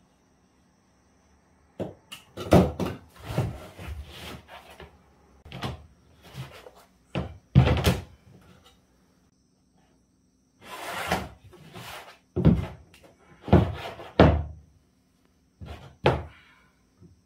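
Vinyl deco tiles being cut with a utility knife and handled on a plywood floor: an irregular run of sharp knocks and thuds mixed with short scrapes, starting about two seconds in.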